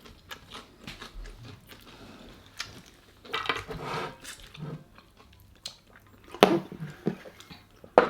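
Close-up biting and chewing of crispy fried chicken, with crunches of the breaded skin and wet mouth sounds; a few louder crunches stand out, the loudest about six and a half seconds in.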